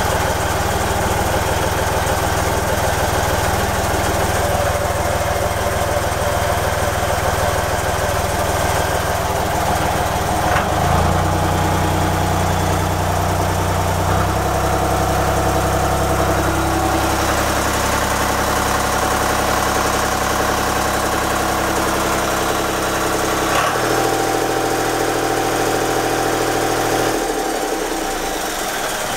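Yamaha D201KH marine diesel engine running steadily, first at idle. Its speed is raised about eleven seconds in, and the note changes again in steps around fourteen and twenty-four seconds.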